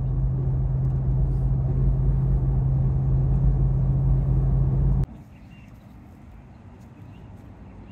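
Pickup truck cab road noise at highway speed: a steady engine and tyre rumble with a low hum. About five seconds in it cuts off abruptly to a much quieter open-air background.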